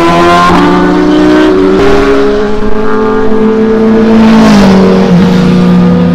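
Sport motorcycle engine running hard as it passes on a highway. Its pitch climbs steadily, then drops about four and a half seconds in.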